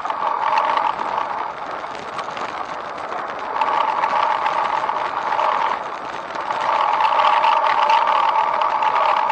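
A vehicle moving along a paved path, giving a steady mid-pitched hum with continuous rattling. The hum swells about half a second in, again around the middle, and from about six and a half seconds on.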